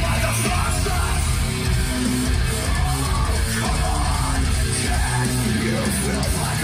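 Heavy metal music with electric guitars, played loud through a pair of open-baffle dipole loudspeakers (Mundorf AMT tweeter, Hybrid Audio X6P midrange, Acoustic Elegance IB15AU bass driver) in a room.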